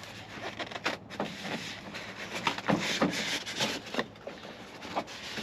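Styrofoam packing being handled and pulled apart: irregular rubbing scrapes and sharp knocks as a case is worked out of it.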